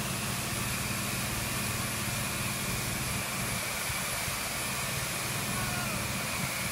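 Motorboat engine running steadily at speed while towing a parasail, with a constant rush of wind and water.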